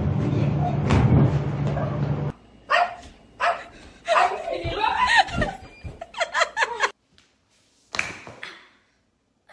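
A steady noisy stretch with a low hum cuts off about two seconds in. Short bursts of people's voices and laughter follow, then a brief silence and one more short burst.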